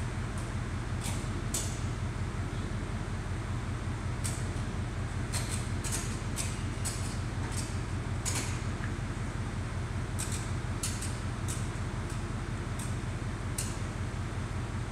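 Ratchet tie-down straps clicking in short quick runs as the car is strapped down on a chassis dyno, over a steady low rumble.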